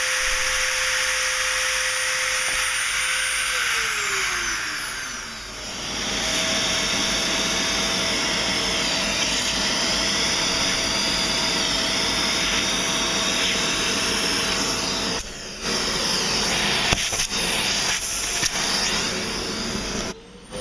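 High-speed rotary tool spindle of a CNC mill whining as it cuts copper-clad FR4 circuit board, then winding down in pitch about four seconds in. From about six seconds a vacuum cleaner runs with its hose nozzle at the cutter, sucking up the milling dust with a steady rushing sound, with brief breaks near the end.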